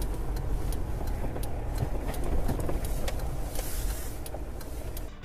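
A car driving, heard from inside: steady low engine and road rumble with scattered light clicks.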